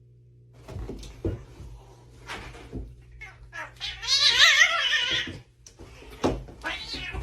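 A domestic cat yowling: one long, wavering call about four seconds in, with scattered knocks and shorter sounds before and after it.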